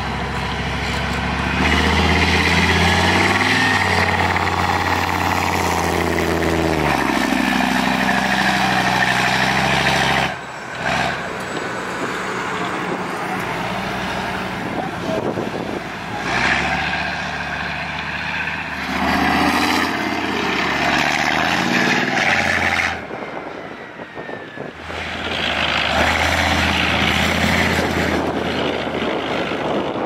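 Tracked armoured vehicles, Leopard 1-based engineering and recovery vehicles among them, driving under load with their big diesel engines running loud. The engine pitch falls about seven seconds in and climbs again around nineteen seconds.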